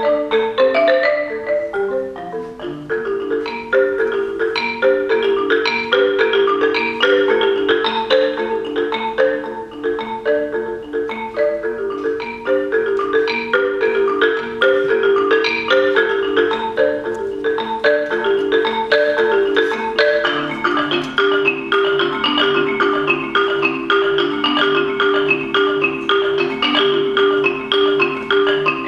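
Solo marimba played with mallets: a fast, steady stream of struck notes repeating a figure in the middle register. About two-thirds of the way through, a low note starts pulsing underneath the pattern.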